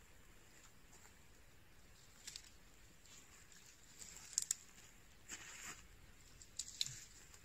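Dry twigs and pine-needle litter crackling and snapping as sticks are picked up and stepped on, with soft crunching footsteps. A few sharp snaps stand out, loudest about halfway through, with two more near the end.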